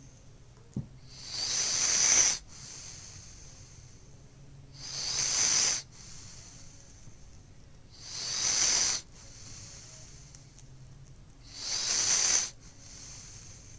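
Snoring: four long hissing breaths, about one every three and a half seconds, each swelling and then cutting off sharply. A brief click comes about a second in.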